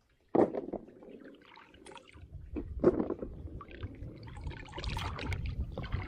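Water sloshing and splashing in a bucket as plums are washed and picked over by hand, with a couple of sudden louder splashes or knocks.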